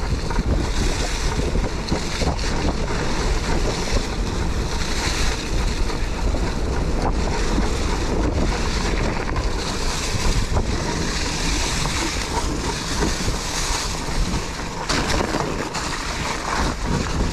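Steady rushing noise with wind buffeting the microphone.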